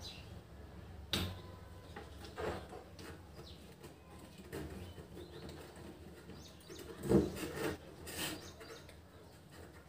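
Handling noise from a plastic mobile phone holder clip being turned over in the hands: a few soft knocks and rubs, the loudest about seven seconds in.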